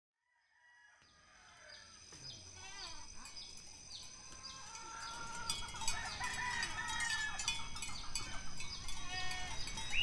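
Herd of goats with neck bells clinking and ringing, mixed with animal calls. It fades in from silence about a second in and grows louder.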